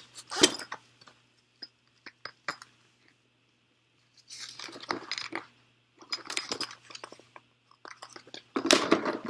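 Tools and a clamp-on meter being handled in a toolbox. A sharp click comes about half a second in, then a few small clicks, then three stretches of crunchy clattering and rustling.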